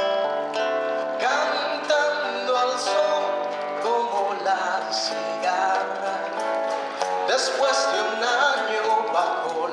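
Live acoustic music led by plucked guitar: quick picked notes over sustained chords, with a bending melodic line running through it.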